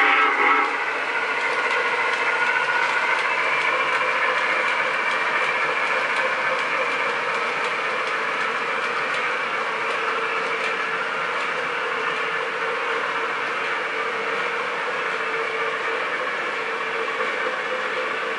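O-gauge model train running on metal three-rail track: a steady rolling whir with a constant motor hum and a few faint clicks. A whistle-like tone dies away just after the start.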